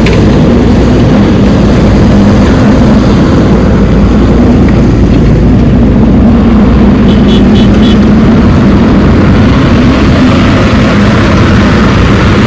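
Steady, loud motor noise with a constant low hum. About seven seconds in come three short high beeps.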